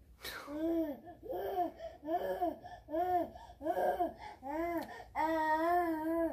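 Baby babbling: a string of short rising-and-falling "ah" sounds, about two a second, then a longer held one near the end.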